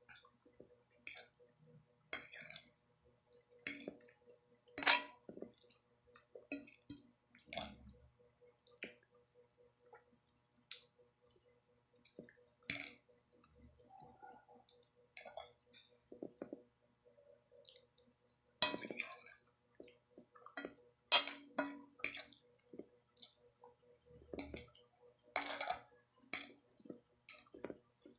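Metal fork clinking and scraping against a plate while twirling and lifting spaghetti, in scattered short strokes with pauses between. The loudest clinks come about five seconds in and in a cluster from about nineteen to twenty-six seconds.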